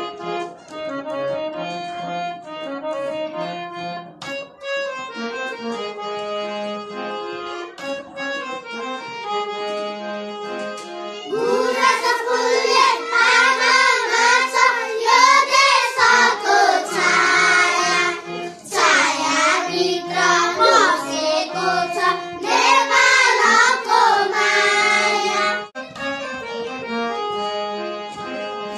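Instrumental music with sustained notes, then about eleven seconds in a group of young schoolchildren starts singing a song together over it, with a short break near the end.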